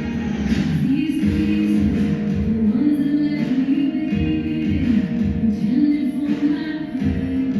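Music: a song with sung vocals over a repeating low beat.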